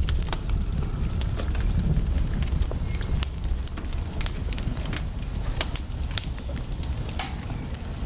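Fireplace fire crackling, with many irregular sharp snaps and pops over a steady low rumble.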